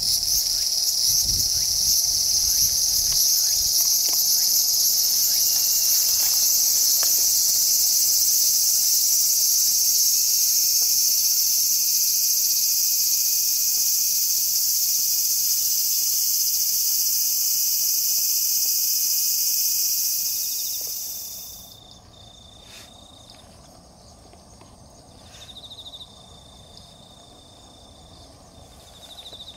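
Loud, steady, high-pitched chorus of insects, which cuts off abruptly about two-thirds of the way through. After it, a much fainter thin, steady insect trill continues.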